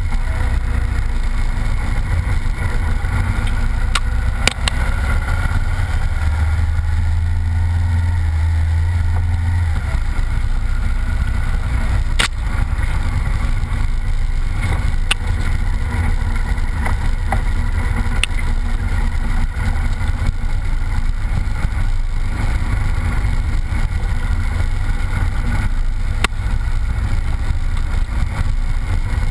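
Off-road vehicle's engine running steadily while driving along a wet dirt track, with wind and tyre noise on the mount. The low engine note swells louder from about six to ten seconds in, and a few sharp ticks break through now and then.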